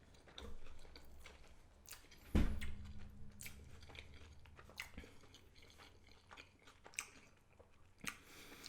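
A person biting into and chewing an Impossible Whopper burger close to the microphone: soft wet smacks and crunches of bun, patty and toppings, with a louder bite about two and a half seconds in.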